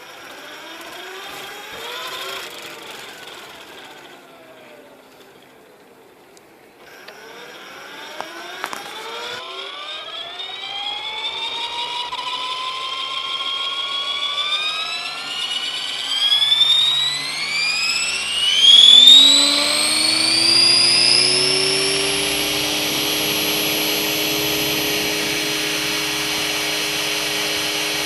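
Radio-controlled model helicopter spooling up: a whine that climbs steadily in pitch for about fifteen seconds, then holds steady once the rotor reaches flying speed.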